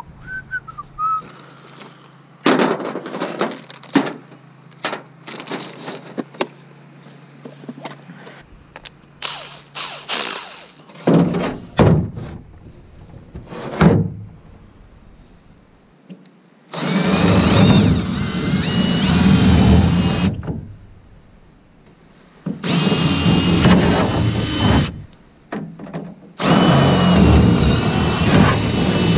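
Cordless drill running in three runs of a few seconds each, drilling into the boat's transom, with a whine that climbs slightly in pitch during each run. Before that, a string of knocks and thunks from handling wood and tools on the boat.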